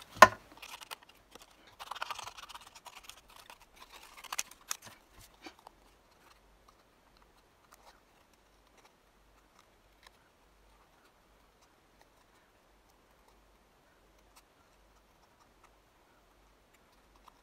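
Small craft scissors snipping around stamped images in white card: a run of sharp snips and paper rustling over the first five seconds or so, then only an occasional faint click.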